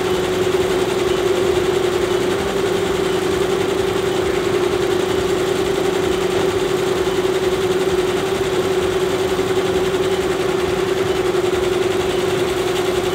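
Commercial multi-head embroidery machines running, a steady mechanical hum with no change in speed.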